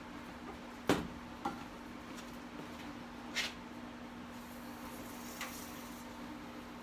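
Heat-treat oven door knocking open with a sharp clack, then a smaller click of metal on metal. A few seconds later comes a short hiss and a faint high sizzle as the red-hot O1 steel blade goes into the Parks 50 quench oil. A steady low hum runs underneath.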